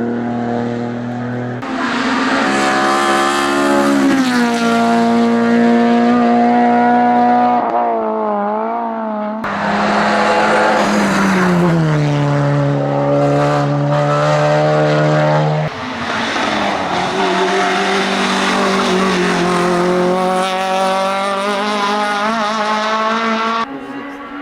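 Race car engines at high revs on a hillclimb, several cars in turn in short cuts. Each engine holds a high note, then its pitch falls sharply, twice, as it brakes or changes down.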